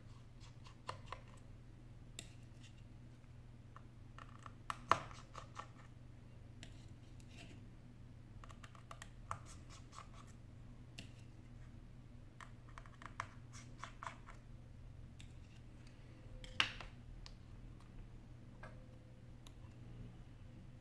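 Small clicks and scratches of a precision screwdriver and fingers handling the internal parts of an opened iPhone 8 Plus: scattered light ticks, with sharper clicks about five seconds in and again near the end, over a steady low hum.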